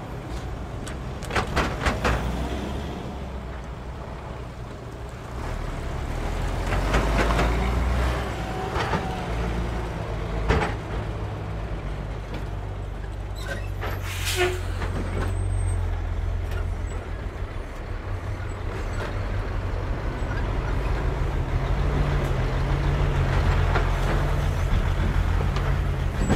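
Road traffic crossing a railway level crossing: cars and heavy lorries rumble past, their tyres knocking over the rails. About halfway through a lorry's air brakes give a short hiss, and the diesel rumble grows as a semi-trailer truck passes close by near the end.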